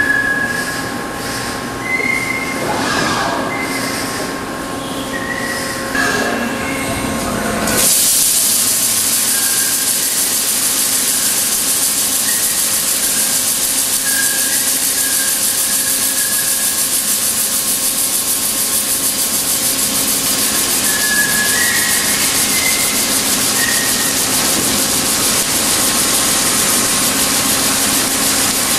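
Horizontal boring mill at work: spindle running with short high squeaks, then about eight seconds in a loud steady hiss of coolant spray sets in as the tool cuts inside a large metal workpiece, with occasional brief high squeals.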